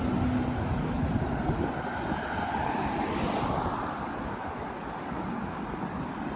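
Traffic on a wet city street: a steady hiss of tyres and rain, with a vehicle passing about halfway through.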